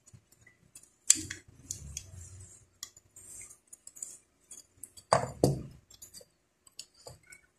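Small metal clicks and clinks of an electric fan's bushing and its retainer lock being handled and seated in the motor's pressed-steel end housing, with louder knocks about a second in and around five seconds in.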